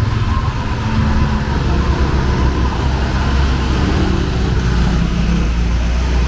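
Street traffic: vehicle engines running close by, a steady low rumble, with voices faintly in the background.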